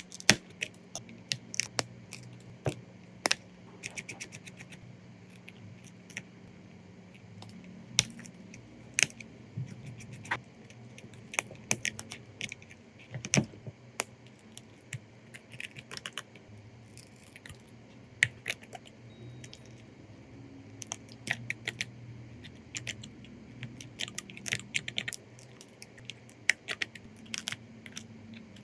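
Small metal repair tools clicking and tapping against a phone's parts, in irregular bursts of sharp ticks, over a faint low hum.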